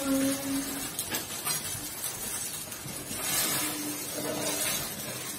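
Ground salsa sizzling as it fries in hot oil with onion in a pot, a steady hiss with a few light clinks.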